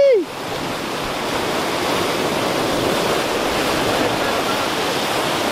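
Ocean surf breaking against a rocky shoreline and washing back, a steady rushing of waves.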